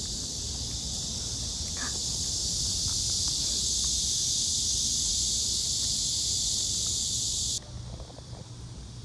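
Dense summer cicada chorus, a loud steady high-pitched hiss that cuts off abruptly near the end.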